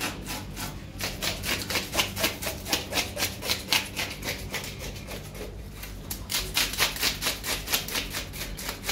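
Fast, regular scraping strokes, about four or five a second, with a short pause about five and a half seconds in, over a low steady hum.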